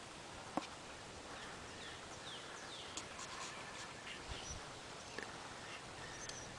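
Birds calling faintly in quiet evening air, including a quick run of short, falling chirps about a second and a half in. A single sharp click comes about half a second in.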